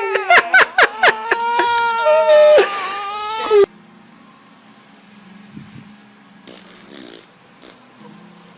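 A baby crying in fright: a loud, wavering wail that breaks off suddenly about three and a half seconds in. After that there is only a faint steady hum with a few small rustles.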